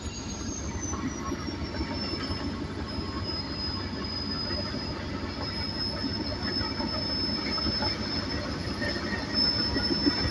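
Tracked earthmoving machinery working: steel crawler tracks squealing and clanking over a low diesel rumble. A thin high whine slides down in pitch over the first few seconds, then holds steady.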